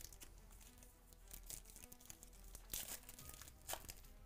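Foil wrapper of a baseball card pack being torn open and crinkled by hand, in a series of short rips, the loudest a little under three seconds in and again near four seconds.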